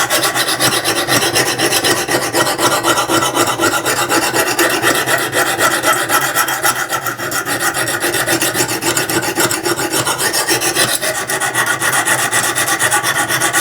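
Lansky sharpening system's diamond hone rasping continuously back and forth across the steel spine of a saw blade, grinding in a new bevel.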